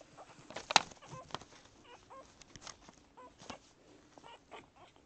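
Day-old English Springer Spaniel puppies squeaking and grunting as they root at their mother's belly to nurse, in many short chirp-like squeaks. A sharp click a bit under a second in.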